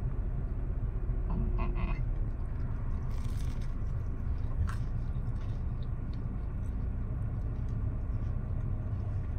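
Steady low rumble in a parked car's cabin, with a few faint mouth clicks of someone chewing food over it.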